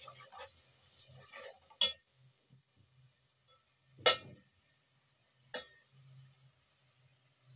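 Slotted metal spatula stirring frying masala in an aluminium pot, with three sharp clinks of the spatula against the pot, about two, four and five and a half seconds in.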